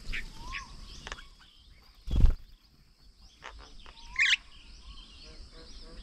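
Several birds chirping and calling at a bird table, short calls and whistles overlapping over a steady high hiss. A loud, short thump about two seconds in.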